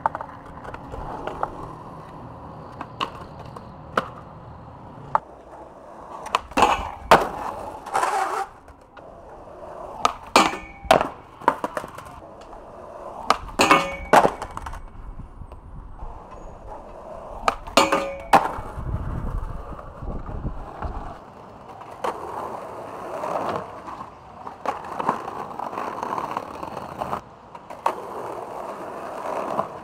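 Skateboard wheels rolling with sharp clacks of the board striking the ground, several in pairs, as tricks are popped and landed; the clacks come in clusters a third and halfway through, with a single one a little later.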